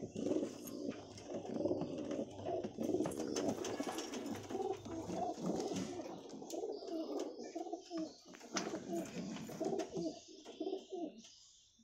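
Several domestic high-flyer pigeons cooing, their low warbling coos overlapping almost without a break and thinning out near the end.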